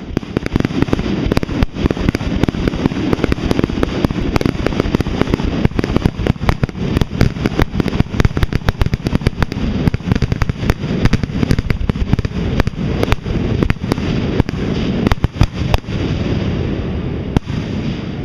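Fireworks finale barrage: aerial shells bursting in rapid, overlapping succession, many bangs a second over a continuous deep rumble, easing off slightly near the end.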